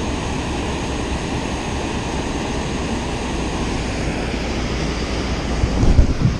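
Steady rushing of water pouring through a spillway, with a few low thumps near the end.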